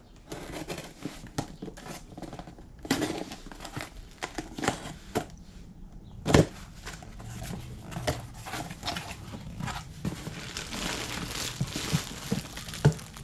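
Cardboard shipping box being torn open by hand, with irregular tearing, crinkling packaging and handling clicks, and a sharp knock about six seconds in.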